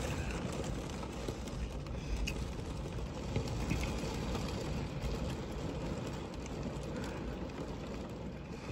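Rain pattering on a van's windows and body, heard from inside: a steady hiss dotted with many small drop hits, over a constant low rumble of wind.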